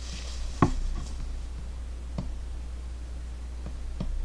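A few sharp computer-mouse clicks, the loudest a little over half a second in, over a steady low hum.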